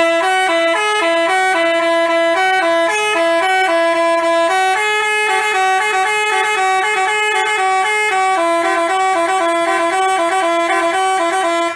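Bus telolet horn of the basuri type playing a tune: a quick run of held horn notes stepping up and down in pitch, starting and stopping abruptly.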